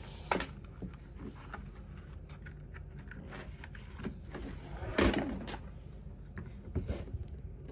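Handling noise from a split keyboard and its hard carrying case: scattered knocks and rubbing, the loudest knock about five seconds in.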